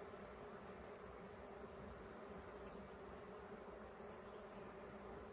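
Honey bees buzzing steadily around an opened hive, a faint, even hum.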